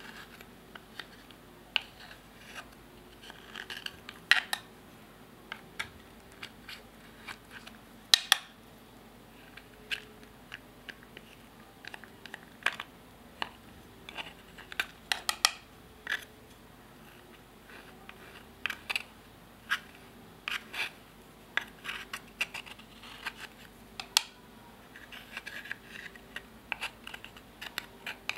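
Metal spatula tool scraping and digging pressed eyeshadow out of its compact: irregular scratches and sharp clicks as the tip hits the pan and case, the loudest a couple of strong clicks early on and about eight seconds in.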